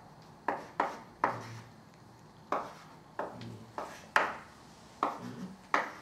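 Chalk tapping and scratching on a chalkboard as letters and lines are written: a string of about nine sharp, irregular taps.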